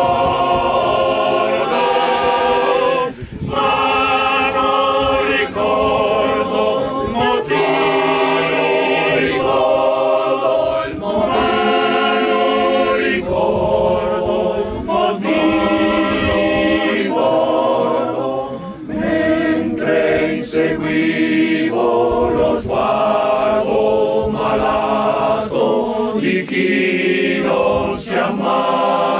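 Choir singing, holding long chords that change every second or two, with short breaks between phrases.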